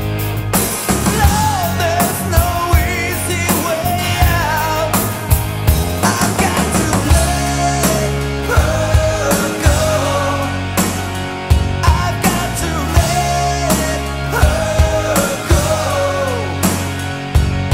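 Hard rock band playing an instrumental passage: a drum kit keeping a steady beat and bass, under a lead melody line that bends and wavers.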